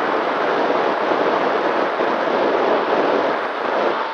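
Steady wind rushing over the onboard camera microphone of a Nano Talon FPV plane in fast, low flight, loud and even throughout.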